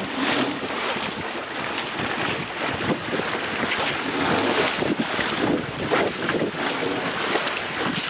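Wind buffeting the microphone over the rush of sea water around a small boat under way: a steady, rough hiss with a high edge to it.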